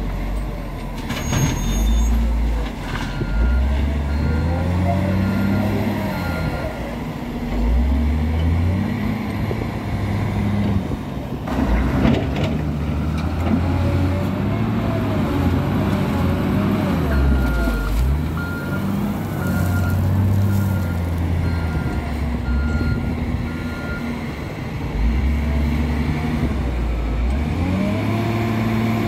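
Wheel loader's diesel engine revving up and down over and over as it works, with a reversing alarm beeping steadily in two stretches. A couple of sharp knocks, one about a second in and a louder one near the middle.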